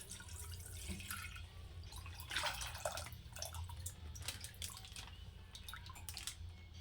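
Milk being poured from a packet into a pan, with irregular small splashes and drips.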